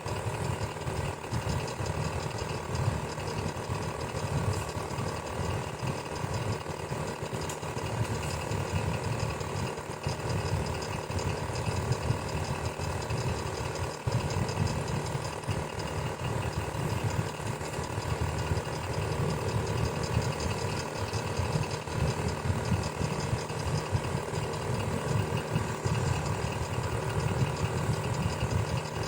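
Electric fan running steadily: a low, even whir with a fast fine flutter, and a few faint steady tones above it.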